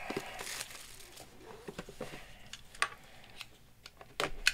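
Soft crinkling of plastic shrink wrap being pulled off a cardboard box, then a few faint clicks from handling the box. About four seconds in, a box cutter slits the box's tape seal in a few short, sharper scraping strokes.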